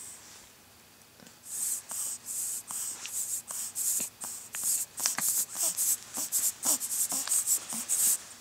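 A baby making quick, breathy hissing noises, about three or four a second, starting about a second and a half in, with faint little squeaks among them.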